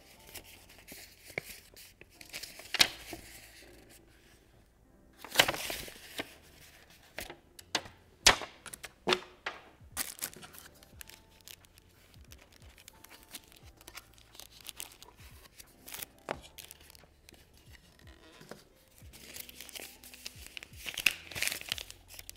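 Paper instruction booklet and warranty card rustling, and a plastic bag crinkling, as they are handled and unfolded. The sound is irregular, with sharper crackles about five and eight seconds in and again near the end.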